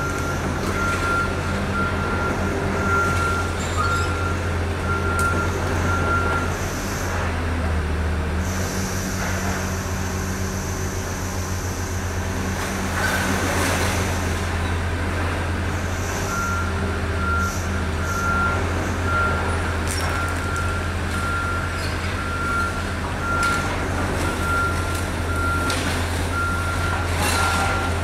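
Dump truck's engine running steadily with its dump body held raised to tip the load. Over it, a vehicle's reversing alarm beeps at an even pace, stopping about six seconds in and starting again about sixteen seconds in.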